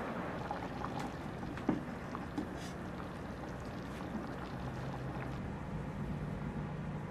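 A pot of beef broth at a boil, bubbling and sloshing as a slurry is stirred in with a wooden spoon. Two sharp knocks of a utensil against the steel pot come about two seconds in.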